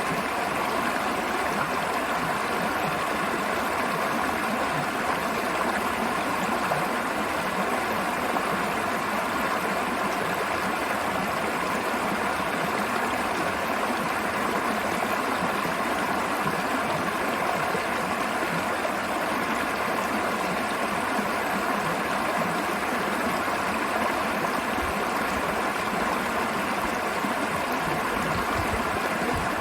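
River water flowing and rushing steadily, an even hiss-like wash of sound with no breaks.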